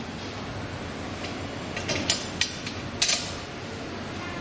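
Small metal clicks as a screw and a steel bracket are handled while the screw is fitted through the bracket hole, a few sharp ones about two to three seconds in, over a steady hiss.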